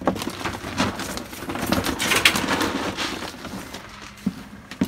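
Dry pet-food kibble being scooped and poured into a plastic basket. A dense rattle of pellets is loudest about two seconds in and dies away after about three seconds, followed by a few scattered knocks.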